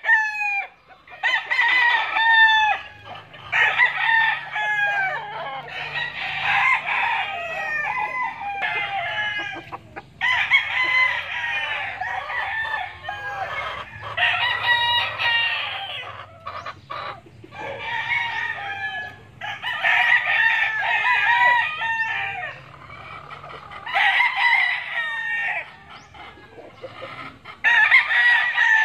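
Many tethered gamecocks crowing one after another and over each other, almost without a break, with a few short lulls.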